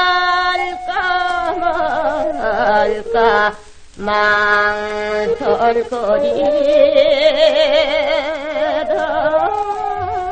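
Korean Seodo minyo (northwestern folk song) singing transferred from an old Victor gramophone disc: one voice holding long, wavering notes with wide vibrato and sliding pitch. There is a brief break for breath about four seconds in.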